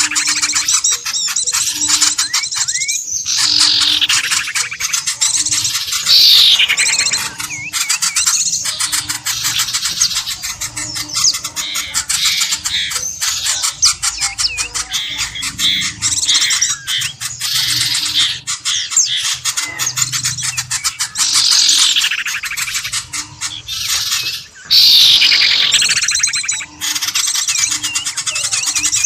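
Bird-lure recording: a dense, busy chorus of many small birds chirping and calling over one another, with loud falling squawk-like calls cutting through every few seconds.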